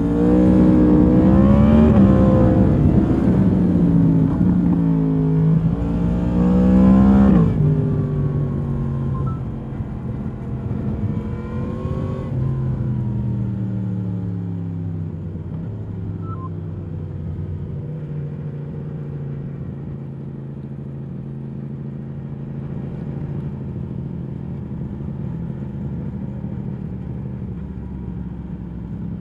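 2022 Yamaha MT-10's crossplane inline-four with its stock exhaust, heard onboard: it revs hard and climbs through the rev range for the first seven seconds or so, then the throttle snaps shut. The revs fall away with one short blip near the middle, and it settles into a steady low idle for the rest.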